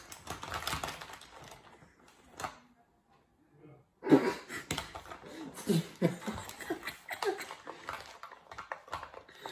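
Rustling and handling of clothes and make-up things, a short lull, then a woman's quiet, broken laughter with murmured voice from about four seconds in.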